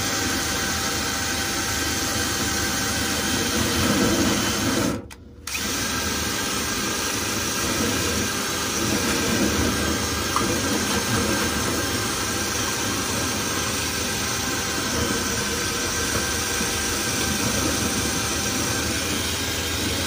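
Power drill steadily spinning a flexible rotary cleaning rod inside a dryer vent duct. It stops for a moment about five seconds in, then starts again.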